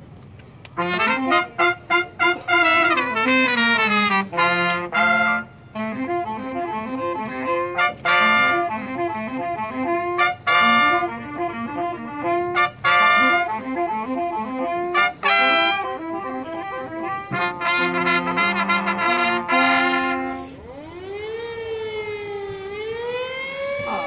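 Marching band brass playing the opening of a field show: loud chords, some short and punchy with gaps between, others held. Near the end the band drops out and a siren wails, rising and falling.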